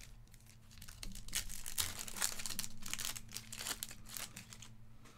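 Foil wrapper of a trading-card pack crinkling and tearing as it is opened. It is a dense run of crackling that starts about a second in and stops about a second before the end.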